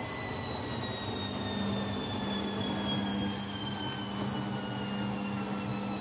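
Candy front-loading washing machine on its final high-speed spin: the drive motor's high whine slowly falls in pitch over a steady low hum.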